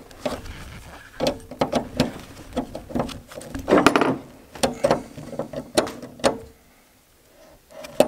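Pliers and a screwdriver clicking and clinking against a stainless steel compartment door paddle latch while cotter pins are fitted to its linkage rods, in irregular sharp metal clicks with brief rings and a short pause about two thirds of the way through.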